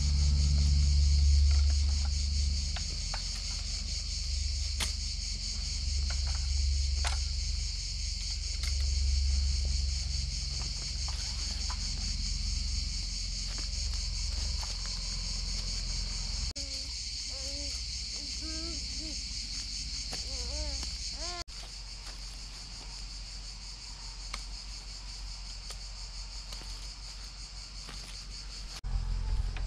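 Steady, high-pitched chorus of summer insects in the trees. A low rumble of wind on the microphone comes and goes through the first half, with a few faint clicks from the folding aluminium camp table being set up.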